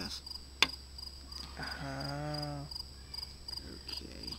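Crickets chirping steadily, about three chirps a second, with one sharp click about half a second in as small neodymium sphere magnets snap together. A short hummed 'mm' about two seconds in.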